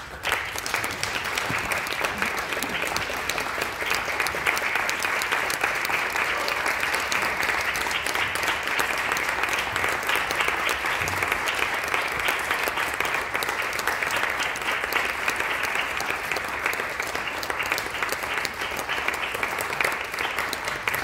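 Audience applauding, breaking out all at once and holding steady as dense, even clapping.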